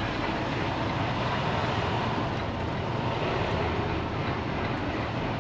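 Semi-truck's diesel engine running steadily with road noise, heard from inside the cab during a slow turn.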